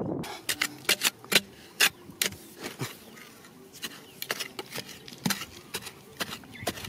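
Narrow metal hand trowel stabbing and scraping into dry, stony soil: irregular sharp clicks and scrapes as the blade hits grit and pebbles, the loudest few in the first two seconds.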